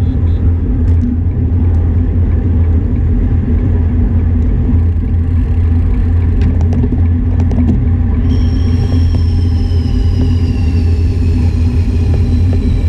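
Steady low rumble of wind buffeting and road noise on a bicycle-mounted action camera while riding on asphalt, with a few light clicks. From about eight seconds in a faint high whine joins and slides slowly lower in pitch.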